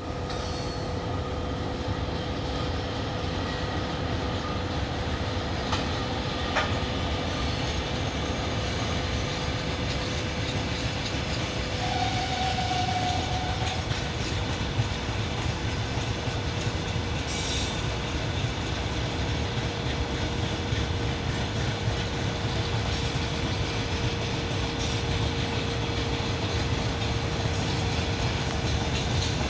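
Freight train hauled by a VL11 electric locomotive running through without stopping: a steady rumble of wheels on rail with clickety-clack and occasional sharp clicks, a steady hum underneath, and a brief squeal.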